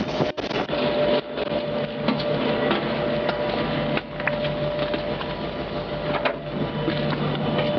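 Vehicle engine idling with a steady hum, with scattered clicks and rustling over it.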